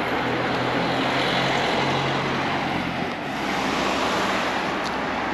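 Steady rushing noise of road traffic passing on a street, with a low engine hum under it for the first few seconds. It dips briefly about three seconds in, then swells again.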